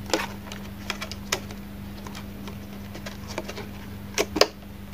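Clear plastic blister packaging being handled and pulled out of a small cardboard box: scattered clicks and crackles, the two loudest about four seconds in, over a steady low hum.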